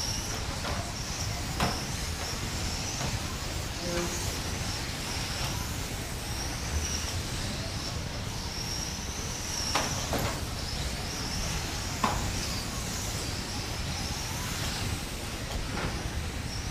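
Electric radio-controlled racing cars running on a carpet track, their motors whining in a high pitch that rises and falls as they speed up and slow down. A few sharp knocks cut through, the loudest about twelve seconds in.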